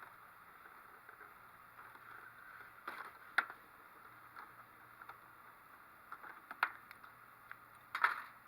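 Lego bricks clicking and clattering as the front panel of a Lego build is pried off: a few sharp plastic clicks, the loudest about three and a half seconds in and near the end, over a steady faint hiss.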